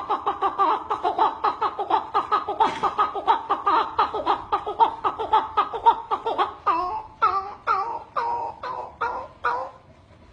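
A person imitating a chukar partridge's call with the voice: a rapid run of repeated clucking notes, about six a second. The notes slow about two-thirds of the way in into fewer, longer notes that fall in pitch, then stop near the end.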